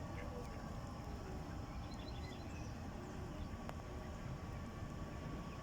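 Ducks giving short, low calls several times over a steady low rumble of background noise, with a few faint high bird chirps about two seconds in.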